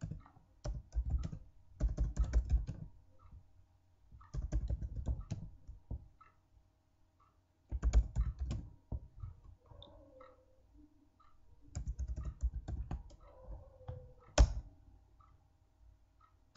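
Computer keyboard typing in short bursts of keystrokes with pauses between them, and one single louder, sharp keystroke near the end.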